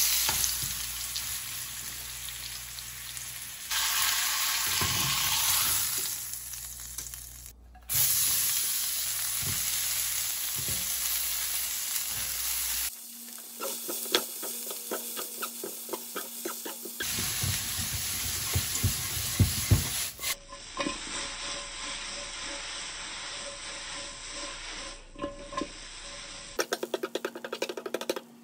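Sizzling of a bone-in ribeye steak searing in a nonstick frying pan, then of shredded cabbage and carrot stir-frying, with quick scraping and clicking of a spatula and tongs against the pan. The sound changes abruptly several times where the footage is cut.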